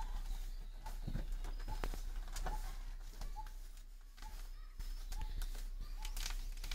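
Scattered clicks and rustling as the weeder's parts and packing are handled, with a few brief bird chirps behind them.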